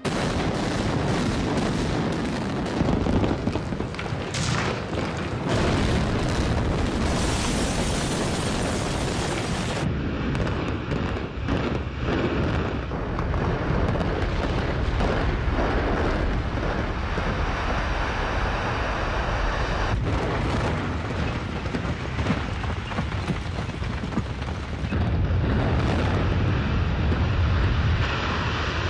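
Explosive demolition of a 31-storey reinforced-concrete high-rise: a continuous, loud rumble of charges going off and concrete collapsing, broken by sharp blasts. The sound changes abruptly several times.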